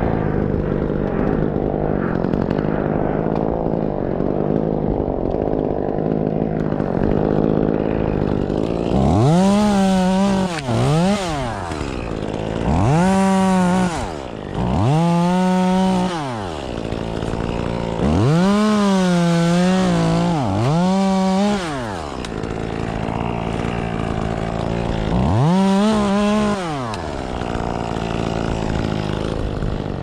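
Chainsaw idling, then revved up to full speed over and over in short bursts of one to two seconds, each rising in pitch, holding, and dropping back to idle.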